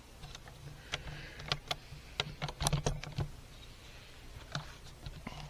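Handling noise on a hand-held camera: a run of irregular clicks and knocks, thickest just past the middle, over a low steady rumble.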